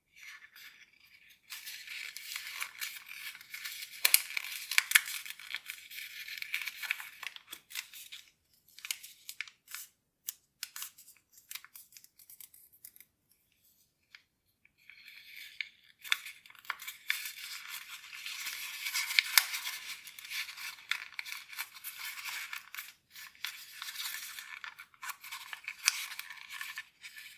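Sheet of origami paper being folded and worked by hand: crisp rustling and crinkling with sharp creasing clicks, in two long stretches with a lull about halfway.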